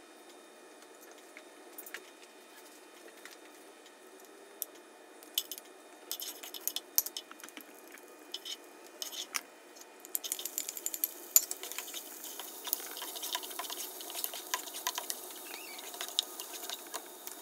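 Whole spices and chopped onion frying in hot oil in a pot, with the light taps and scrapes of a spatula stirring them. Scattered clicks and taps early on give way, about ten seconds in, to a dense sizzling crackle.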